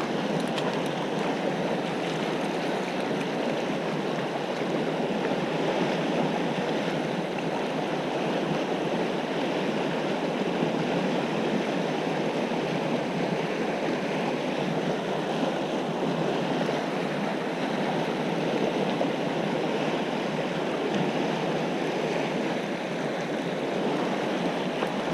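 Fast river water rushing over a rocky riffle: a steady, even rush of whitewater.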